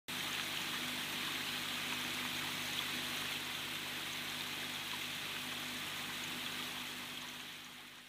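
Small tabletop terrarium waterfall: water trickling steadily down a channel of moss-covered stones into a shallow pool, with a faint steady low hum underneath. The sound fades out near the end.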